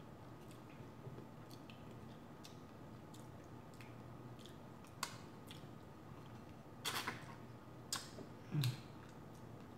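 Quiet chewing with small wet mouth clicks, then a few sharper crackles over the last few seconds as a shell-on shrimp is handled and peeled by hand.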